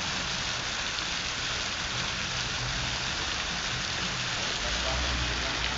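Heavy rain pouring onto an asphalt street, a steady dense hiss. A low rumble swells near the end.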